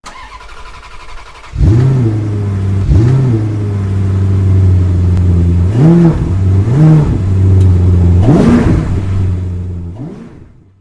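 An engine runs at a steady idle and is blipped five times, each rev rising and falling quickly, then it fades out.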